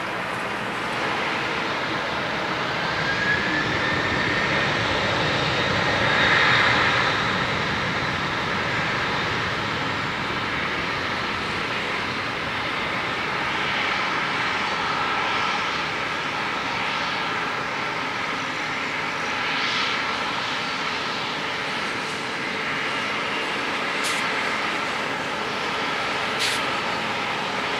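Jet engines of a Boeing 747-400F freighter running, a continuous noise with steady whining tones; one whine rises in pitch about three seconds in and the sound is loudest around six seconds in. Two short clicks near the end.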